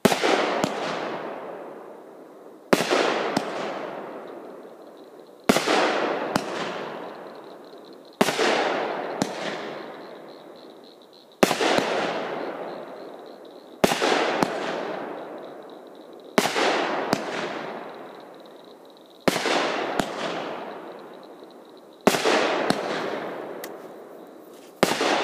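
Devastator 500-gram fireworks cake firing shot after shot: about ten loud booms of shells breaking in the air, roughly one every two and a half to three seconds. Each boom fades off in a long echoing rumble, with a smaller sharp pop in between.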